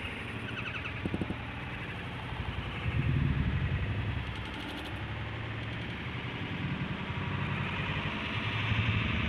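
Road traffic: a low engine hum from nearby vehicles that swells about three seconds in and again near the end.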